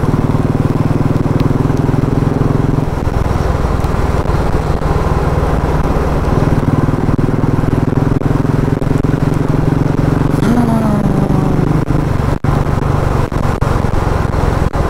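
Motorcycle engine running steadily at cruising speed, with wind rushing over the microphone. A brief falling tone sounds about ten seconds in.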